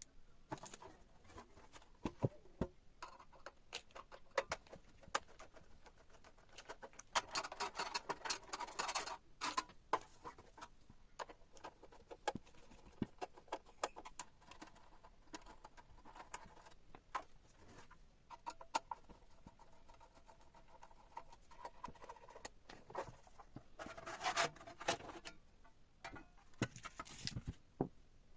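Hand-handling noises of small hardware: scattered clicks and taps with bursts of scraping and rubbing, loudest about 7 to 9 seconds in and again about 24 seconds in.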